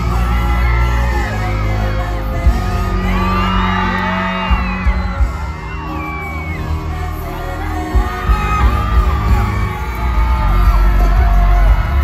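Loud amplified live pop music with deep sustained bass, and a crowd screaming and cheering over it.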